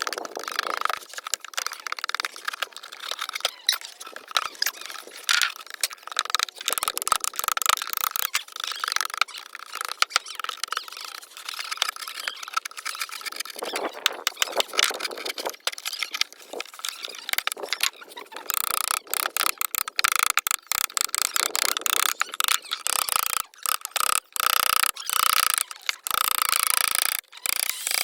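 Carving tool cutting and scraping into wood, a rapid, uneven run of rasping strokes and clicks that gets louder and denser in the second half.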